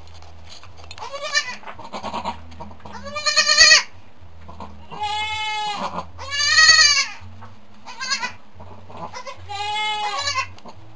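Goats bleating: about six bleats in a row, each bending up and then down in pitch. The loudest come about three and a half and six and a half seconds in.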